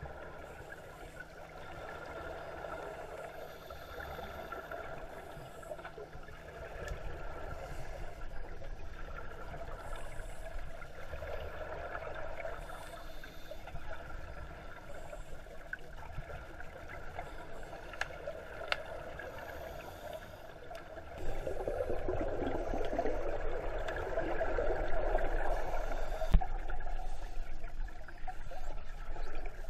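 Underwater sound heard through a GoPro housing: muffled bubbling and hiss of scuba divers breathing through their regulators and exhaling bubbles, with a few sharp clicks. The bubbling grows louder about two-thirds of the way in.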